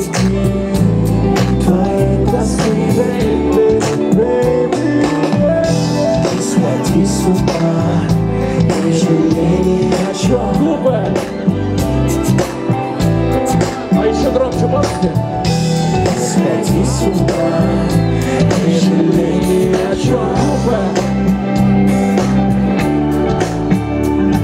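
A song playing, with a steady drum beat and a singing voice.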